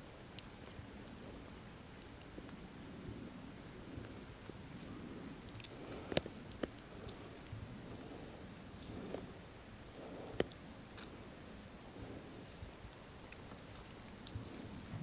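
Footsteps on a rocky trail, about one a second, with a few sharp clicks, the loudest about six and ten seconds in, over a steady high-pitched buzz.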